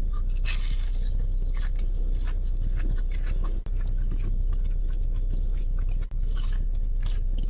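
Close-up chewing and crunching of a crispy-crusted fried chicken tender, a dense run of small crackles over a steady low hum.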